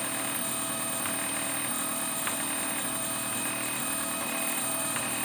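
Homebuilt 3D printer running a print: its stepper motors whine steadily, with several steady tones, over the hum of the cooling fans. The motors are driven at 12.5 volts and still sound a little gnarly.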